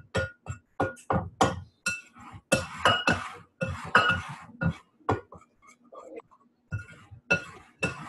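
A utensil clinking and scraping against a mixing bowl at a quick steady pace while dry baking ingredients (flour, baking soda, salt) are stirred together. It pauses briefly about five seconds in, then starts again.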